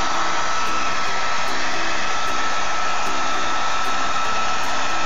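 Handheld hair dryer running steadily: an even rush of blowing air with a steady high whine.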